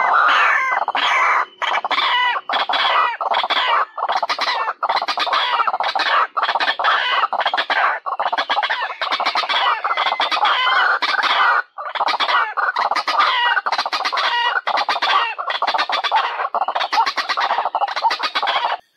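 White-breasted waterhen (ruak-ruak) lure call: a long, loud run of harsh, rapidly repeated notes with only brief breaks, cutting off suddenly near the end.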